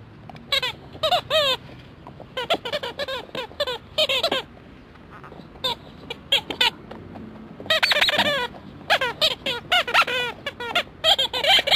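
Orange rubber rhinoceros squeaky toy squealing as a dog chews it. The squeaks come in quick runs of short gliding squeals, with brief pauses between the runs.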